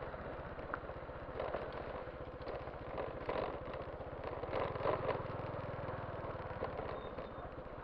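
A small engine running steadily, growing louder for a second or two about halfway through, with scattered scraping and knocking sounds on top.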